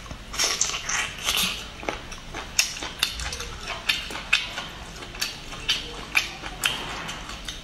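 Close-miked mouth sounds of chewing a braised octopus tentacle: wet lip smacks and sticky clicks, irregular, one or two a second.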